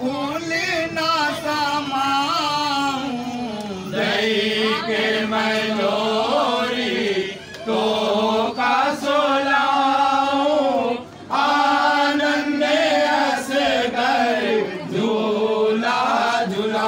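Men chanting a devotional kalam without instruments. The long, wavering held notes come in phrases of three to four seconds, with short breaks between.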